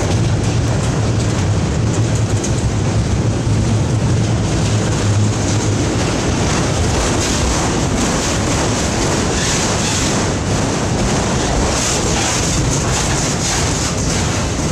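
Freight train rolling past: a low drone for the first several seconds, then the steady noise of cars rolling on the rails with many quick ticks.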